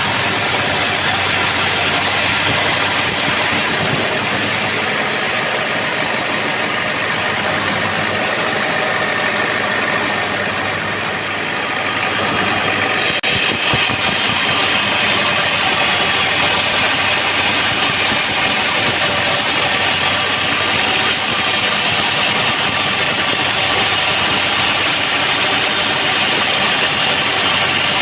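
Homemade band sawmill running steadily, its blade sawing a trembesi (rain tree) log, with a brief dip in loudness about eleven seconds in.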